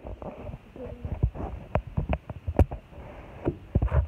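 Handling noise from a phone being moved about over a guinea pig cage: irregular soft knocks and thumps, several to the second, with a few sharper clicks near the middle and near the end.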